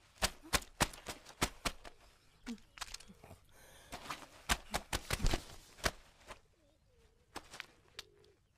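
Wet clothes being scrubbed and slapped by hand on a stone washing slab: a quick run of sharp wet slaps, about three to four a second, fading out after a second or two, then another burst of slaps around four to five seconds in.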